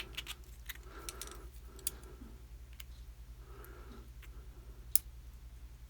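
Small sharp clicks and ticks of lock pins, springs and tools handled while the top pins are taken out of a disassembled padlock's pin chambers, with soft handling noise between them. One click about five seconds in is louder than the rest.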